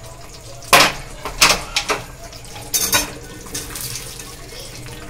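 A few sharp metal clanks of the pressure cooker pot and spatula against the kadai, then a short wet rush about three seconds in as boiled chickpeas are tipped out of the pressure cooker into the thick masala.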